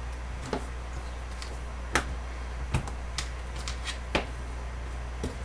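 Light clicks and taps of small quadcopter frame parts being handled as the outer arm plate is fitted onto the nylon standoffs, about six separate clicks over a few seconds, over a steady low hum.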